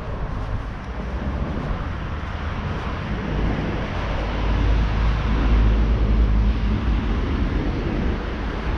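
Road traffic passing along a city street: a steady wash of tyre and engine noise with a low rumble that swells in the middle as vehicles go by.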